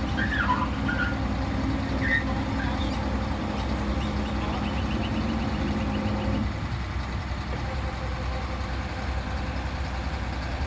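Truck-mounted hydraulic tree spade's engine running steadily, with a steady hum over it that stops about six and a half seconds in. A few short high chirps sound in the first couple of seconds.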